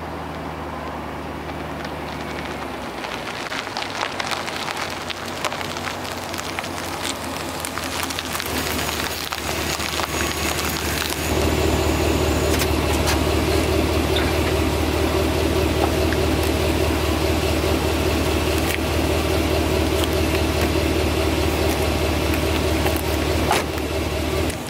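Pickup truck driving up a gritty asphalt lane, tyres crackling over loose grit, then its engine running steadily close by, louder from about halfway; the engine note drops away near the end.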